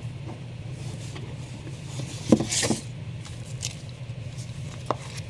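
Comic books and cardboard being handled in a shipping box: paper rustling and light knocks, loudest as a double rustle about two and a half seconds in, over a steady low hum.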